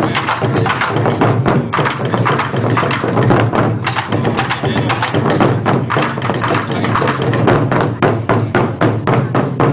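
Ensemble of taiko drums struck with sticks together in a fast, dense rhythm of many beats a second.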